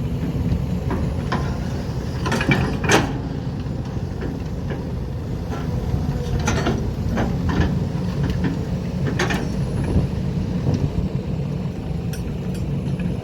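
Kobelco SK200 Super excavator's diesel engine running steadily while it digs and loads. Several sharp metallic clanks come from its loose bucket, the loudest about three seconds in.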